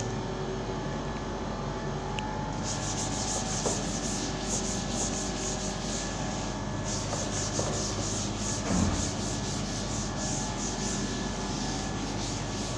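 Chalkboard duster wiped across a blackboard in quick back-and-forth strokes, about four a second, starting a couple of seconds in with a brief pause midway.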